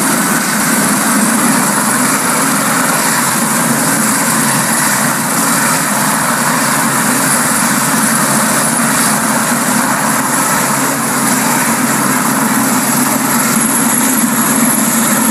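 Light turbine helicopter hovering low, its rotor and engine running steadily with a thin high whine above the rotor noise.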